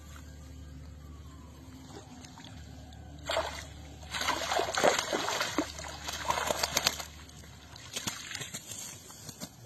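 Shallow muddy water splashing and sloshing as a cast net full of fish is gathered and hauled out by hand: one splash about three seconds in, a longer spell of splashing and dripping from about four to seven seconds, and more splashes near the end as the net comes up.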